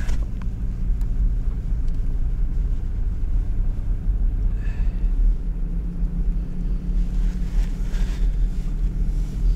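Car driving on a packed-snow road, heard from inside the cabin: a steady low rumble of engine and tyres.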